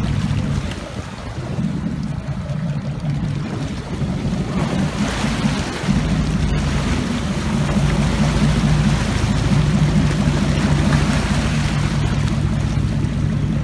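A boat's engine running with a steady low hum, under the rush and splash of water at the stern and wind on the microphone.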